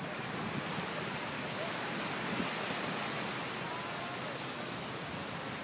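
Steady rushing noise of wind and shallow water at the shore.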